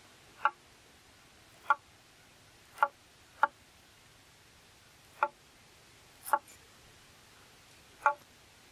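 Cleaver chopping a peeled root: seven sharp knocks at irregular intervals.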